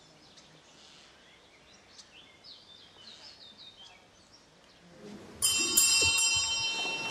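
Faint birdsong, then about five seconds in a high-pitched bell starts ringing loudly, struck several times in quick succession and left ringing.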